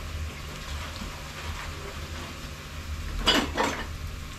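Two short clattering knocks of metal cookware, a fraction of a second apart, about three seconds in, over a faint low background hum.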